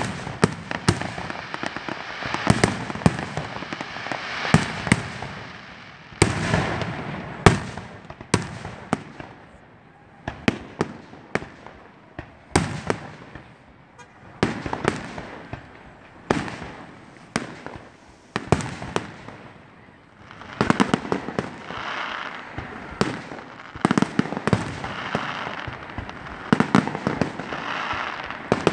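Fireworks display: aerial shells bursting one after another, dozens of sharp bangs, often in quick clusters, each trailing off in an echo.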